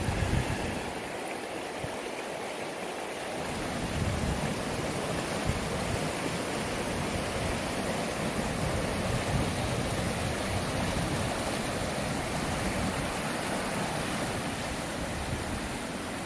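Creek water rushing steadily over rocks and through small rapids.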